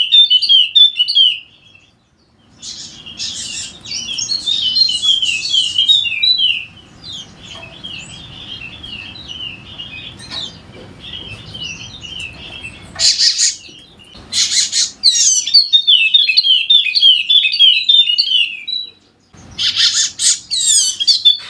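Yellow-spectacled white-eye (Zosterops wallacei) singing non-stop: long runs of rapid, high twittering notes with a few short pauses and some harsher, raspy bursts in between.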